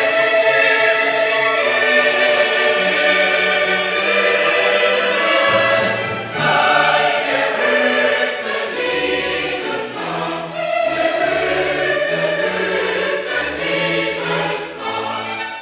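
A choir singing in held chords with instrumental accompaniment, growing quieter toward the end.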